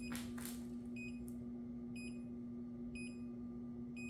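Red light therapy bed's control panel giving short, quiet high beeps about once a second, the end-of-session countdown in the last seconds before the bed shuts off, over the steady low hum of its running cooling fans.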